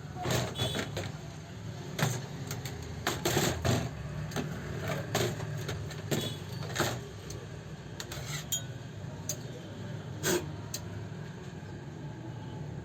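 Irregular metallic clicks and knocks of tools and parts being handled on an old overlock sewing machine, over a steady low hum.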